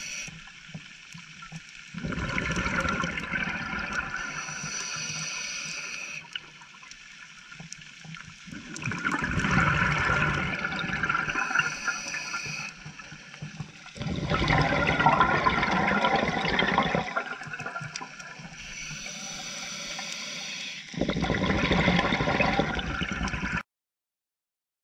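A scuba diver's regulator breathing underwater. Four long bubbling exhalations come roughly every six seconds, with a faint hiss of inhalation between them, and the sound cuts off suddenly near the end.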